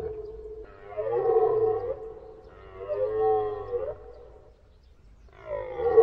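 Red deer stag roaring in the rut: a call fades out just after the start, then two separate roars of about a second and a half each, their pitch bending, and a louder roar begins near the end.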